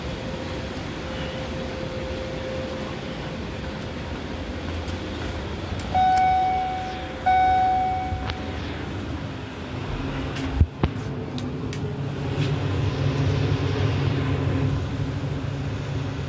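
An Otis elevator's arrival chime rings twice, about a second apart, each ding a clear tone that fades away, over steady station background noise. A sharp knock follows a few seconds later, then a steady low hum.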